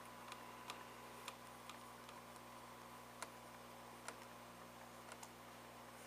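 Keys of a replacement Dell Studio 1555 laptop keyboard pressed one at a time, giving faint, irregularly spaced clicks: each key is being tested for dead spots.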